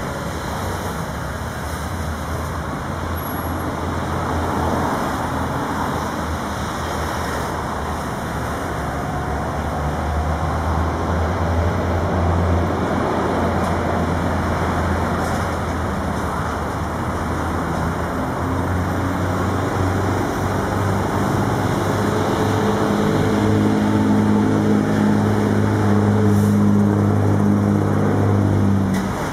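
Road traffic with a motor vehicle engine running close by: a steady low rumble throughout, and from about two-thirds of the way through a heavier engine hum with a clear low pitch grows louder.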